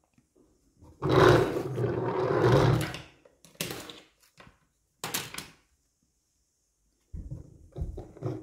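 Hard plastic toy parts clicking and knocking as pieces of a toy pirate ship playset are pushed into place, with two sharp snaps in the middle. Near the start comes a loud, noisy sound lasting about two seconds, louder than the clicks.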